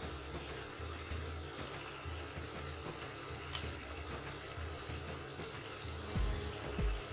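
Washed moong dal being scraped from a glass bowl into a pressure cooker where bathua greens are frying, over a faint steady sizzle. There is one sharp click about halfway through, and a few dull knocks near the end as stirring begins.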